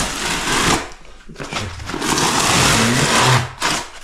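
Several layers of wetted paper wallpaper being torn and peeled off a plastered wall, in two ragged rips: a short one, then after a brief pause a longer one of about two seconds.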